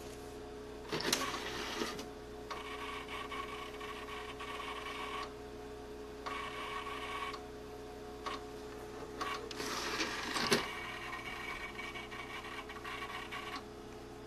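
Power Macintosh 6500/275's drives whirring in repeated spells of one to a few seconds over the machine's steady hum, as the computer, whose hard drive has failed, keeps trying and failing to start. A few soft knocks come about a second in, near two seconds and near ten and a half seconds.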